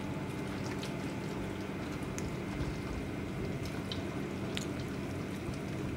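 Wet squishing of a hand rubbing thick yogurt-and-spice marinade into a raw leg of mutton on a steel platter, with a few faint clicks, over a steady low hum.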